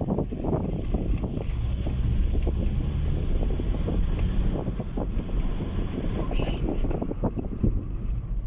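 Cabin noise of a 2006 Volvo S60 with the 2.4-litre D5 five-cylinder diesel, driven at speed: a steady low engine and road rumble with wind noise over it and small knocks and rattles throughout.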